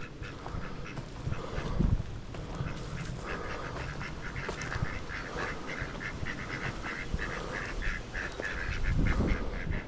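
Ducks quacking: a quick run of short, repeated quacks from about three seconds in.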